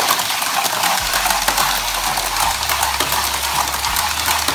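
Two small battery-powered remote-control toy cars running through a clear plastic tube track: a steady high whir from their little electric motors, with fast rattling and ticking as they run against the tube walls.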